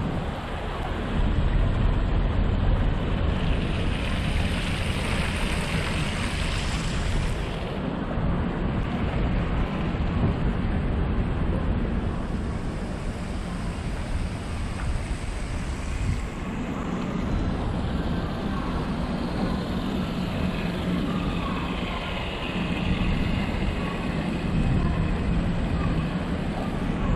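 Steady street ambience of passing vehicles, with wind on the microphone.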